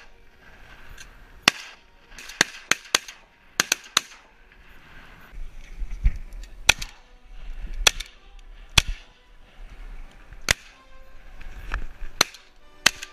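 Shotgun shots, about a dozen in all. Some come singly and some in quick strings of two or three a fraction of a second apart, as hunters fire at ducks overhead.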